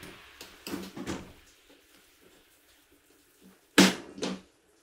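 Sharp knocks from hand work on a corrugated steel wall sheet lying on a wooden trailer deck: a pair about a second in and a louder pair near the end.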